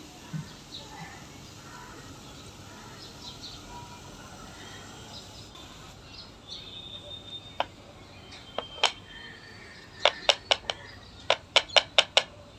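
Faint background hiss, then a scatter of sharp clicks in the second half. Near the end they come in two quick runs of about four and five clicks.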